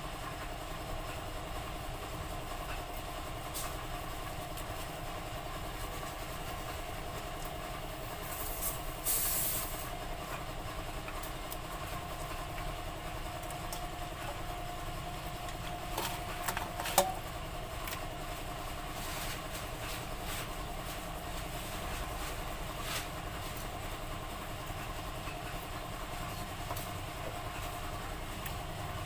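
Steady machine hum with a constant tone, with a brief hiss about nine seconds in and a single sharp knock around seventeen seconds.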